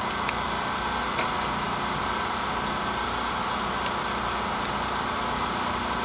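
A motor running steadily, with a few brief sharp ticks scattered through it.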